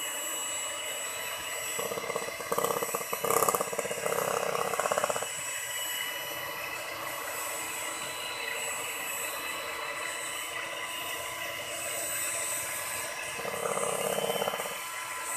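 Electric hand mixer running steadily, its beaters whipping cream in a stainless steel bowl. The whine gets louder about two to five seconds in and again near the end.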